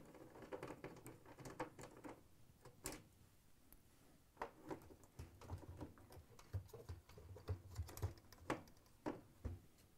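Faint, irregular clicks and taps of hand work on a washer's sheet-metal front panel: a Torx screwdriver taking out the door switch's screws and the plastic door switch being pushed in through its opening.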